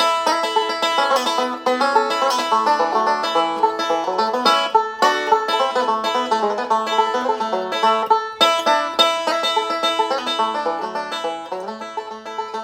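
Background music: a fast banjo tune in bluegrass style, quick plucked notes.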